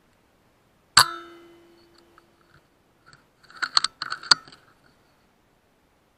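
A single shot from a BSA R12 pre-charged air rifle: a sharp crack about a second in, followed by a ringing tone that fades over a second or so. Around three and a half seconds in comes a quick run of five or six sharp clicks, the bolt being cycled to load the next pellet.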